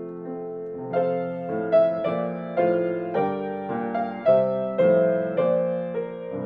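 Piano playing a slow hymn in full chords, a new chord struck about every half second and each left to ring.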